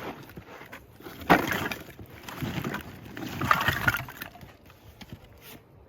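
A sharp knock a little over a second in, then about three seconds of rustling and clattering as camping gear is handled.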